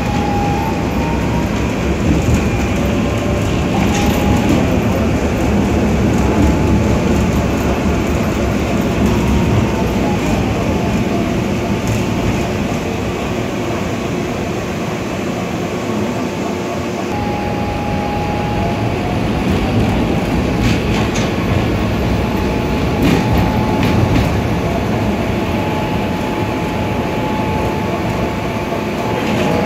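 Electric tram running along its tracks, heard from inside the car: a steady rumble with a motor whine that glides up and down in pitch as it speeds up and slows, and a few sharp clicks from the rails.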